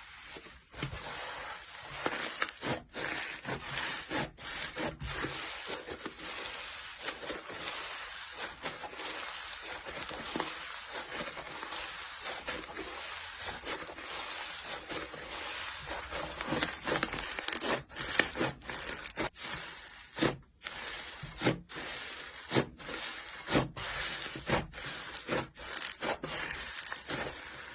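Hands squeezing, stretching and pressing slime: a continuous dense run of crackles, clicks and squelches, broken by brief pauses.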